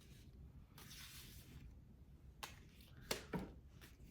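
Tarot cards being handled on a table: a brief soft sliding rustle about a second in, then a few light clicks and taps in the second half.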